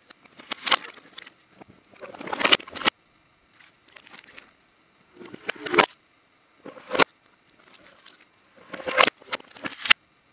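Irregular bursts of dry rustling and crackling, about six in all, some cutting off sharply: birds flapping in and scavenging at a cow carcass of dried hide and bones.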